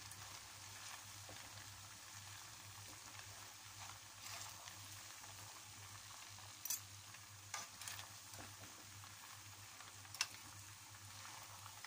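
Bihon and pancit canton noodles with cabbage sizzling faintly in a frying pan while being stirred, a steady soft hiss. A few sharp clicks of the utensil against the pan come about two-thirds through and once near the end.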